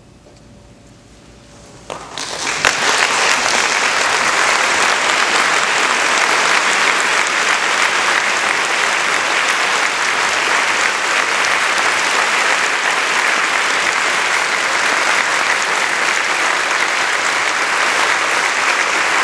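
Concert audience applauding. It breaks out suddenly about two seconds in, after a faint held note, and carries on steadily.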